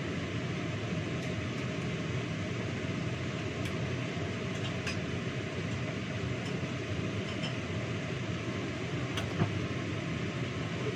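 Kitchen range hood exhaust fan running with a steady low rush, with a few light clinks of dishes and a sharper knock about nine seconds in.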